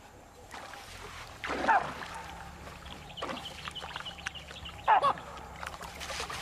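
Baboons calling in distress: two loud, short cries about one and a half seconds and five seconds in, with fainter calls between.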